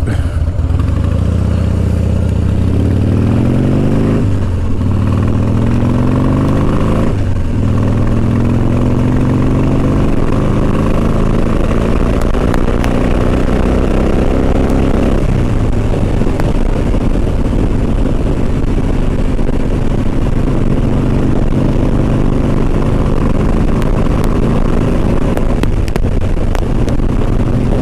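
Motorcycle engine accelerating up through the gears, its pitch rising and dropping back at the shifts about four and seven seconds in, then running at a steady cruising speed.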